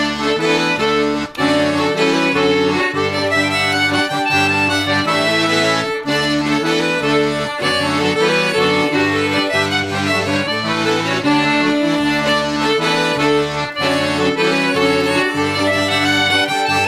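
Background music: a folk tune led by accordion, over a bass line that steps from note to note.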